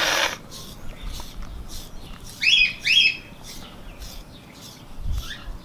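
Grooming brush scraping through a dog's thick coat in short strokes, with two short, high, falling bird chirps about two and a half and three seconds in.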